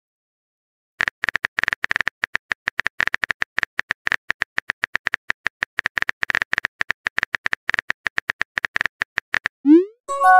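Simulated smartphone keyboard clicks from a texting-story app: after a second of silence, a fast, steady run of key taps as a message is typed. Near the end, a short rising swoosh and a chime as the message is sent.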